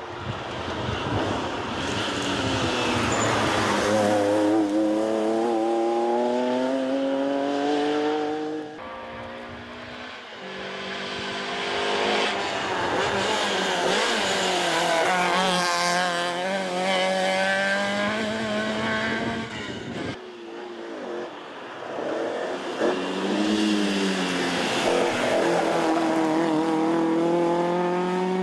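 Three rally cars passing one after another at full effort: a classic Porsche 911, a Renault 5 and an Opel Kadett. Each engine's pitch climbs as it accelerates and drops at each gear change.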